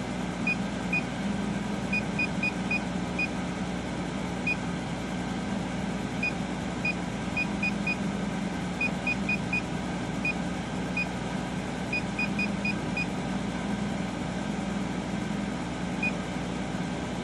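Short, high electronic beeps from the laser engraver's control panel, one for each key press as the max power setting is stepped down. About two dozen come irregularly, several in quick runs, with a last one near the end. A steady low hum from the running laser machine continues underneath.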